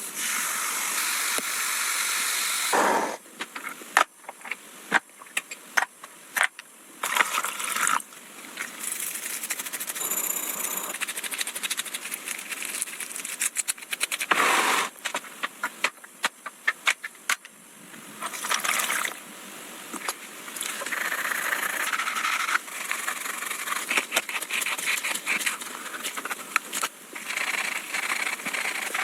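Hands-on cleaning and restoration work on the parts of an old, rusty telescope: stretches of scrubbing, scraping or hissing noise broken by many sharp clicks and taps as parts are handled.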